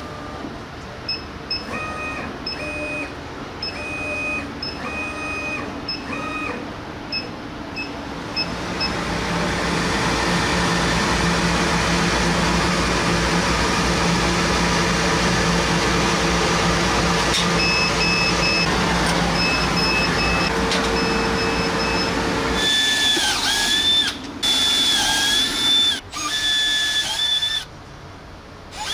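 Laser cutter at work: its motors whine in short, pitch-stepped tones as the head moves, then a steady rush with a low hum runs for over ten seconds. Near the end a power drill runs in short bursts, its pitch dipping as it bites.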